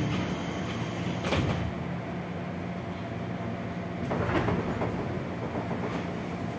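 Cabin sound inside a JR 205 series electric commuter car: a steady low hum from the car's equipment, with two short noisy bursts, about a second in and again around four seconds in.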